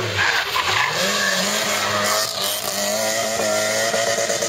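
Small hatchback rally car's engine coming off the throttle into a hairpin, then revving hard out of the bend about half a second in and holding high revs as it accelerates away.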